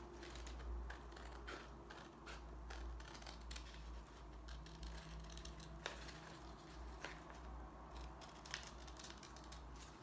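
Scissors snipping through a sheet of coloured paper: a run of faint, short, irregular cuts as the blades follow a curving line.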